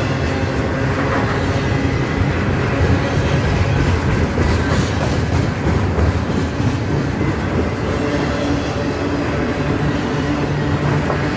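Double-stack intermodal container train passing at close range: steady rumble of the wheels rolling on the rails, with occasional clicks.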